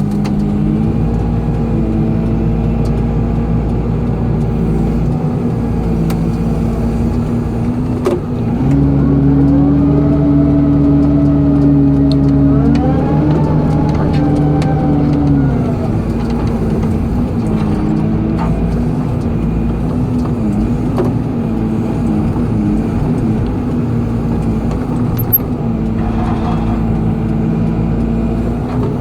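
Excavator diesel engine running steadily. From about 8 seconds in, it runs louder and higher for several seconds under hydraulic load, with a tone that rises and then falls, before settling back.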